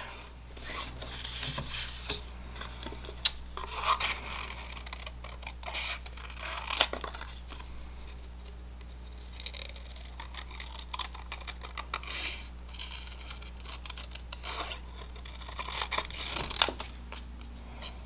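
Small craft scissors snipping around a stamped bird image in white cardstock: a series of short, uneven cuts with paper rustling as the card is turned, and a few sharper snips.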